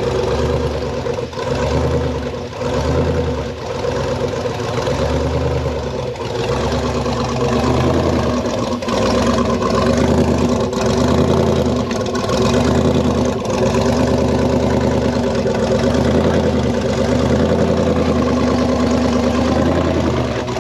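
Off-road 4x4 engine working at low speed, with repeated short pulses of throttle about once a second as it crawls over rocks.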